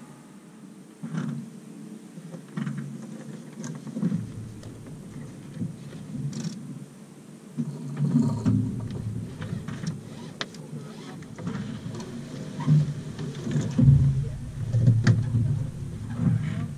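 Irregular knocks, clicks and clunks of crew handling gear on a sailboat's deck, over low, uneven rumbling, growing busier about halfway through.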